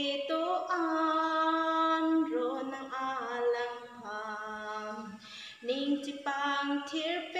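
A woman singing a Christmas song unaccompanied, solo, in long held notes.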